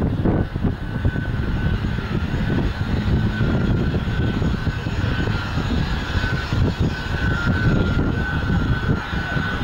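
BAC Jet Provost's Viper turbojet running as the jet taxies, a steady high whine over a low rumble.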